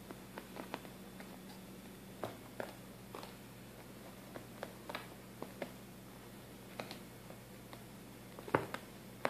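A cat playing with a cotton swab: scattered light taps and clicks as it bats and chews the swab on the carpet, the loudest one near the end, over a faint steady hum.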